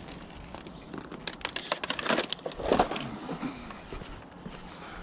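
Rustling and crinkling, with a quick run of sharp clicks and rattles starting about a second in.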